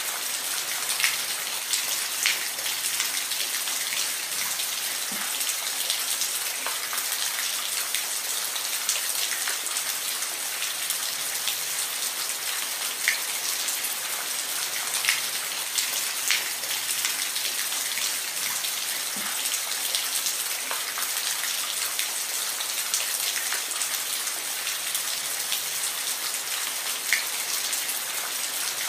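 Steady rain falling on a surface, a constant hiss with scattered louder individual drops landing every second or two.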